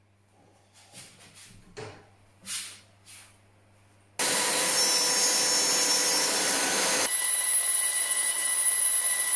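A few light handling knocks, then a Makita RTC0700C compact router switches on about four seconds in and runs at high speed with a steady high whine. The tone shifts abruptly about seven seconds in.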